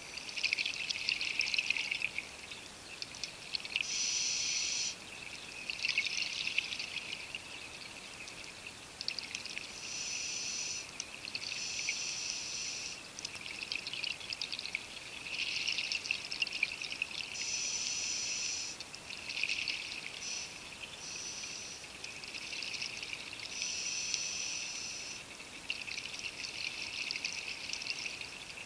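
Scuba diver breathing through a regulator underwater: an airy hiss on each inhale alternating with crackling exhaled bubbles, in bursts of a second or two that repeat roughly every six seconds.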